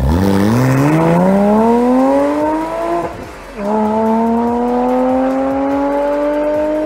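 Porsche 986 Boxster's flat-six engine accelerating, its pitch rising steadily. It breaks off about three seconds in for an upshift, then climbs again more slowly in the next gear.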